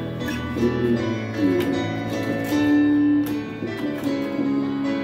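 Electric bass played fingerstyle, its low notes moving under a piano accompaniment in a slow ballad.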